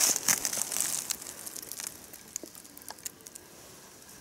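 Dry leaf litter crackling and rustling as someone moves through it, with crisp crunches loudest in the first second or so. It then fades to a few faint scattered ticks.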